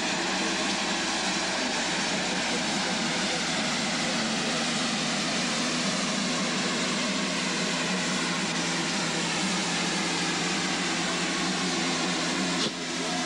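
Steam locomotive moving slowly alongside the platform with a steady, loud hiss of steam and no clear exhaust beat.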